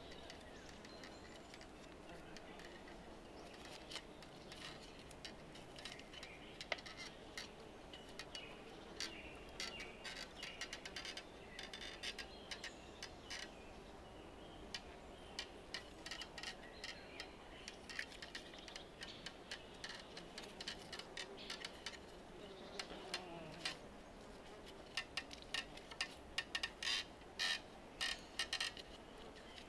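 Faint, irregular light clicks and taps of wooden parts and tools being handled while a wooden frame saw is being built, coming in quick clusters partway through and again near the end.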